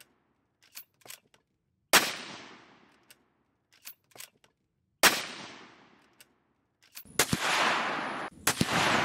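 CZ 527 Carbine bolt-action rifle in .223 Remington firing twice, about three seconds apart, each shot echoing away over a second or so, with faint clicks of the bolt being worked between shots. Near the end a steady rushing noise starts, broken by sharp cracks.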